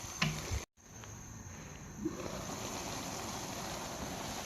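A wok of pork, green beans and bean sprouts stewing in added water: a steady, quiet simmering bubble. There is a brief clink just after the start.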